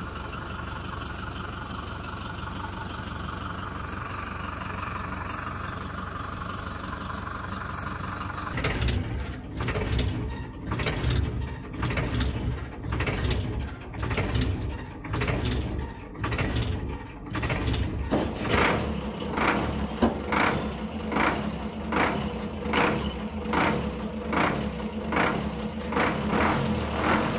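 Heavy truck engine sound, running steadily at first, then chugging in regular surges from about nine seconds in, the surges coming faster in the second half.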